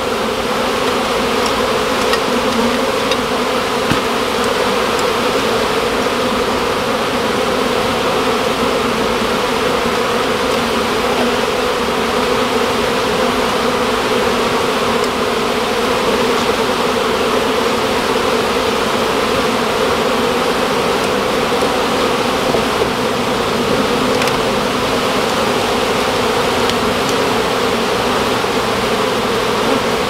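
Honey bee colony in an opened wall void, buzzing steadily and loudly.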